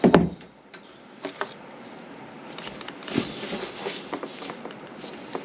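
Hands handling a small SSD enclosure: a few sharp light clicks, then a stretch of rustling and scraping, and another click near the end.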